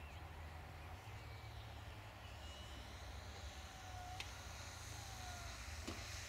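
Wind rumbling on the microphone, low and unsteady, with a couple of faint clicks in the second half.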